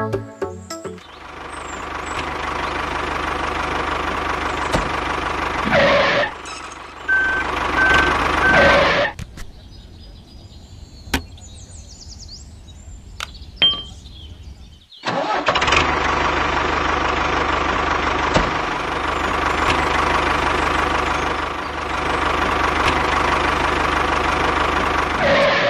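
Engine sound of a miniature model tractor running steadily. It drops out for about six seconds in the middle, leaving only a few clicks, then runs again until just before the end.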